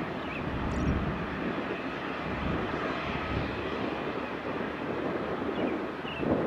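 Boeing C-17 Globemaster III's four turbofan engines running on the ground at taxi power: steady jet engine noise.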